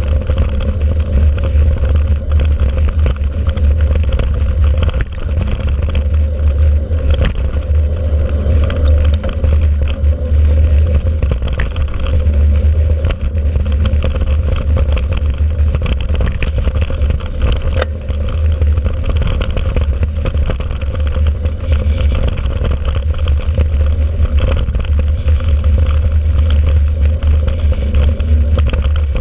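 Steady low rumble of wind buffeting the microphone of a camera on a mountain bike's handlebar, with scattered clicks and rattles from the bike jolting over a bumpy dirt track.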